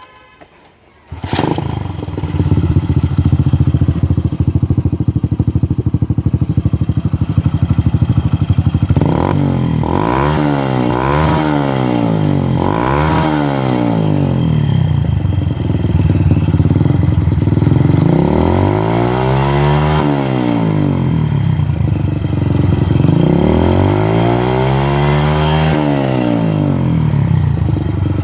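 Hero Splendor's single-cylinder four-stroke engine firing up about a second in through an aftermarket Two Brothers-style carbon-finish silencer, then idling. It is blipped three times in quick succession and then given two longer revs that rise and fall back to idle.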